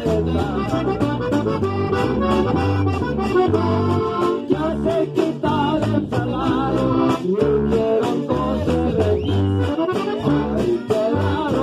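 Live Mexican regional band playing: an accordion carries the melody over electric bass, acoustic guitar and a steady beat on snare drums.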